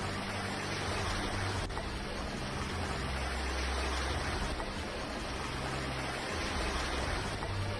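Heavy rain mixed with hail pouring down onto a stone-paved street, with runoff water: a steady, even hiss.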